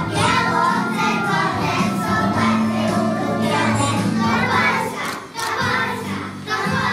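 Young children singing together into a microphone over instrumental backing music, with a short break between lines about five seconds in.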